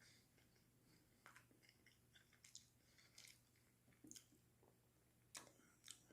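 Faint chewing of a breaded chicken nugget: irregular soft mouth clicks and small crunches, a couple of stronger ones near the end, over a low steady hum.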